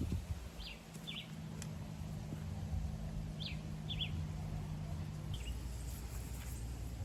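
A small bird chirping outdoors: short, quick, falling chirps, often in pairs, repeated several times. Under it runs a low steady hum that cuts off about five seconds in.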